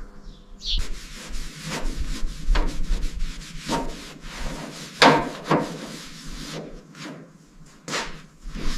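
Hand tool work on a surface: irregular rubbing and scraping strokes with a few short knocks, the loudest about five seconds in.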